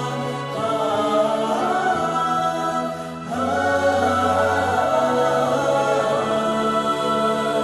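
Music: choir-like voices holding long chord notes over a bass line, with a brief dip about three seconds in.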